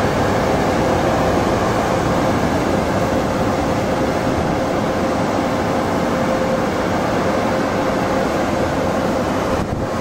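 Automatic car wash air-dryer blowers running: a loud, steady rush of air with a constant whine through it, dipping briefly just before the end.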